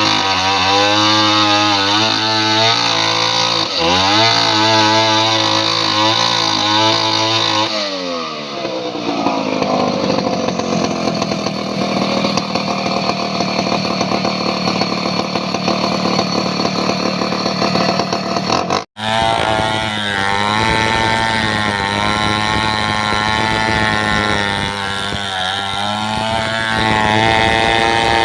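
Two-stroke chainsaw running at high revs, its pitch dipping and recovering again and again as it is loaded. About eight seconds in the revs fall and hold lower for a while. There is a sudden brief cut-out near the middle, after which it runs on with more dips in pitch.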